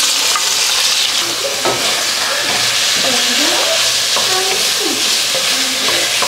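Diced, salt-and-pepper-seasoned chicken breast sizzling steadily in hot olive oil in a stainless-steel frying pan while being stirred with a wooden spoon.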